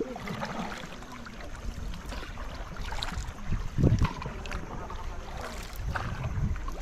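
Wind rumbling on the microphone over water sounds from a kayak on the move, with a louder splash or knock about four seconds in.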